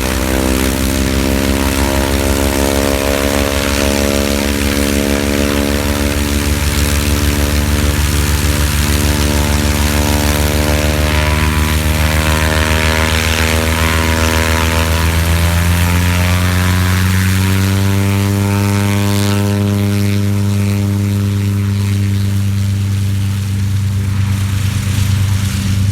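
Propeller aircraft engines running with a steady drone. About fifteen seconds in the pitch rises and then holds steady at the higher note, as the engines speed up.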